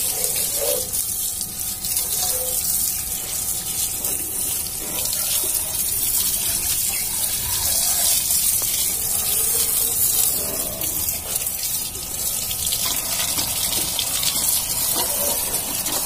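Thin jet of water from a homemade 12 V DC pump spraying onto a motorcycle's engine casing, stand and wheel and splashing onto wet ground: a steady hiss.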